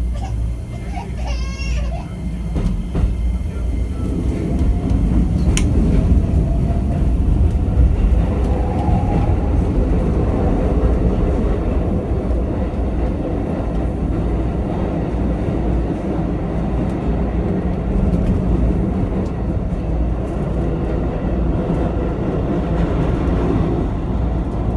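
Keikyu 1000 series electric train, with its Toyo Denki IGBT VVVF drive, running and heard from inside the front cab: a steady rumble of wheels on rail. Over the first several seconds the running sound grows louder and a motor tone climbs in pitch as the train gathers speed.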